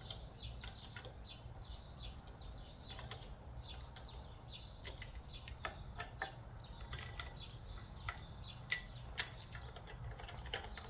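Small hand ratchet clicking in short, irregular runs while the bolts of a motorcycle air cleaner are turned, with a few sharper metal ticks.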